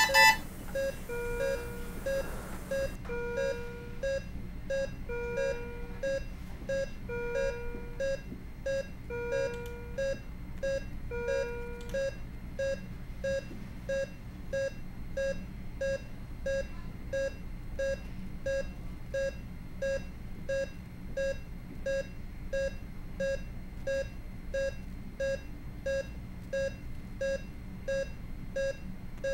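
Electronic medical-monitor beeping: short, evenly spaced beeps about one and a half a second, matching a heart rate of about 90. Over them a lower alarm tone repeats every couple of seconds and stops about twelve seconds in.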